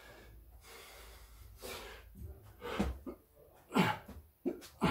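A man breathing hard from exertion during Navy SEAL burpees, with a few sharp, grunted exhales in the second half.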